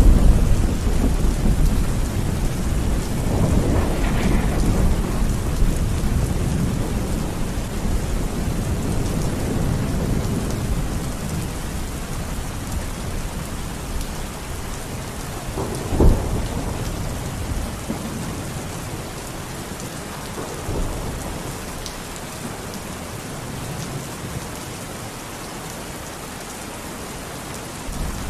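Steady rain in a thunderstorm, with deep rolling thunder that is loudest at the start. A sharp thunderclap comes a little past halfway, and the rumble dies down toward the end, leaving mostly the rain.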